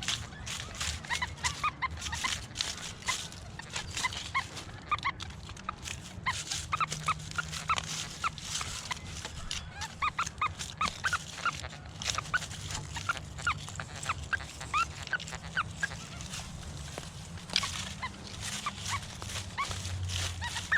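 A dog yelping and whining over and over in short high-pitched calls, a few each second, with scattered clicks.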